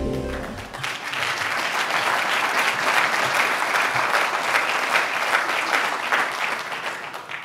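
Audience applauding steadily, dying away near the end. The last held chord of the brass entrance music fades out in the first second.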